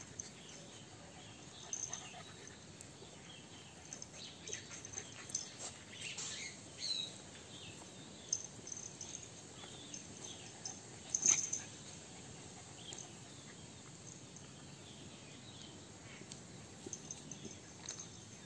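Two puppies play-fighting, with scattered short yips and small dog vocal sounds among quieter scuffling; the sharpest sound comes about eleven seconds in.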